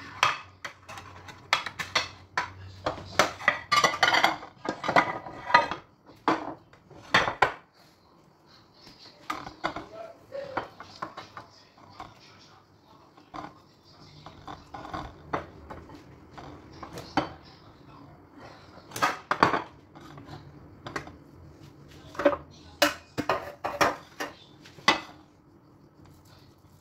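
A metal spoon clinking and scraping against a saucepan and a metal baking tray as béchamel sauce is spooned over rolled crêpes, in scattered bursts of sharp knocks that die away near the end.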